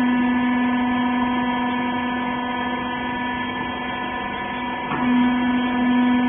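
Hydraulic cloth baler's electric motor and pump running with a steady hum. About five seconds in there is a brief click and the hum grows louder, as the machine comes under more load.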